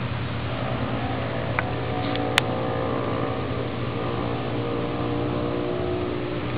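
Honda Tornado's 250 cc single-cylinder four-stroke engine running steadily at an even speed. Two short clicks cut through it, the second sharper.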